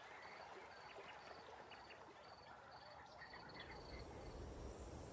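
Faint wildlife ambience: a short, high call repeating about twice a second. Near the end a steady high-pitched buzz and a low rumble come in.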